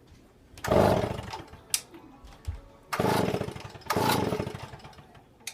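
Gas chainsaw being pull-started: three yanks of the starter cord, about half a second in and twice more around three and four seconds. Each gives a short burst that dies away, and the engine does not keep running.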